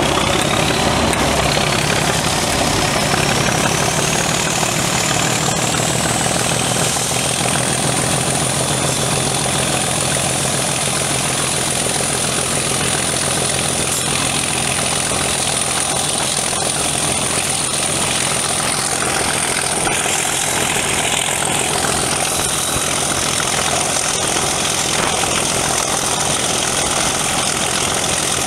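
English Electric 12CSVT V12 diesel engine of a Class 37 locomotive working hard under power. Its turbocharger whistle rises steadily in pitch over the first several seconds as the engine opens up, then holds at a high steady pitch over the engine's running.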